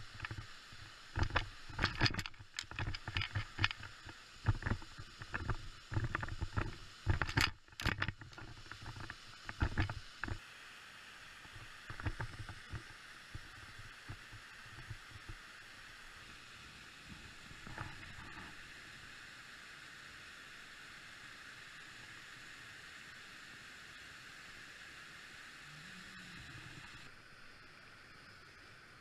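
Irregular crunches and knocks of boots and gear on a snowy bank for about the first ten seconds. After that comes the steady rush of a fast-flowing river, which eases a little near the end.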